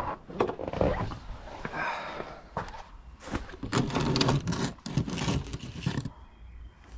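Irregular clicks, knocks and scraping of objects being handled, coming in uneven clusters and quieter for a moment near the end.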